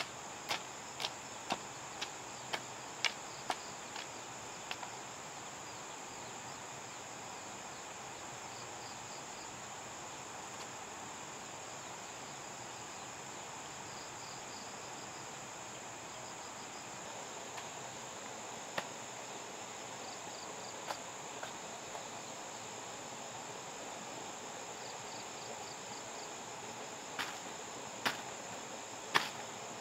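A steady, high-pitched chorus of insects chirring. Over it, a run of sharp knocks about two a second during the first few seconds, and a few louder knocks near the end.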